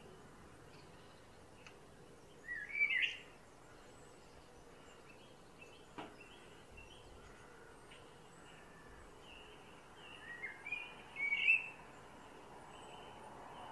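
Male Eurasian blackbird singing two short warbled song phrases, one a few seconds in and one near the end, with faint notes of other birds in between.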